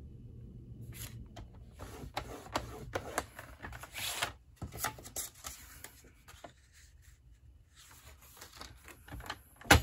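A sheet of cardstock being scored and handled: paper rustling, scraping strokes and small clicks through the first half, with a longer scrape about four seconds in. It then goes quieter, and there is a sharp click just before the end.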